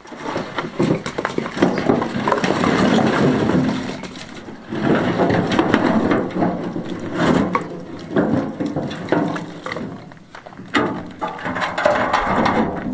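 Chopped firewood tumbling out of a tipped wheelbarrow onto the ground, logs clattering and knocking against each other in long bouts with scattered knocks between.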